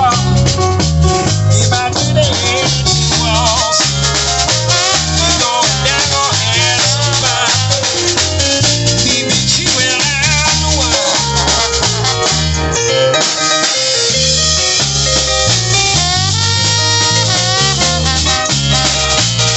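A New Orleans-style band playing: keyboard, drum kit, bass and trombone, with a pulsing bass line under the drums.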